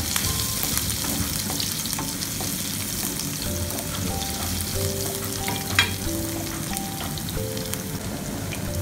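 Garlic, ginger and onion sizzling in hot oil in a non-stick frying pan, stirred with a wooden spatula that clicks and scrapes against the pan. One sharper knock of the spatula comes about six seconds in.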